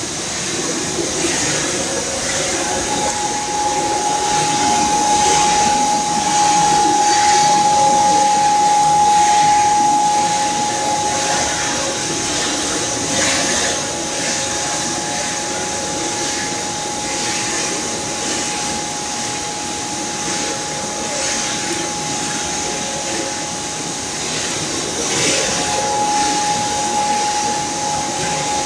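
Palm oil screw presses running: a steady, loud machine noise over a constant hiss. A high whine rings through it, fading in the middle and coming back near the end.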